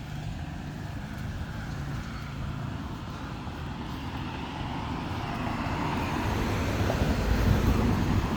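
Road traffic: a vehicle's engine and tyre noise growing steadily louder as it approaches, loudest near the end.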